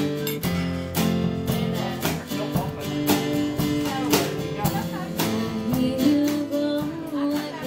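A small live band playing a song: acoustic guitar strummed over a steady drum-kit beat, with a woman singing.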